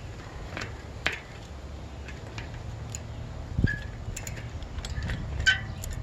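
Light metallic clicks and clinks as a mountain bike's rear wheel is worked out of the frame past the chain and cassette, with a dull knock about three and a half seconds in.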